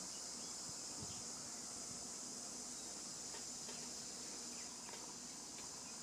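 A steady, high-pitched drone from a chorus of insects.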